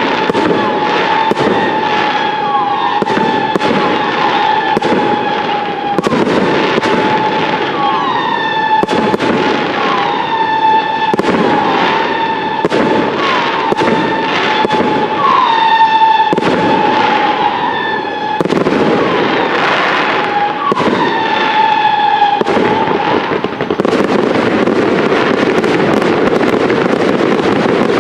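Fireworks display: a rapid series of aerial shell launches and bursts, one every half second to a second, over a steady high tone with overtones. About three quarters of the way through the tone stops and the bursts merge into a dense, continuous barrage.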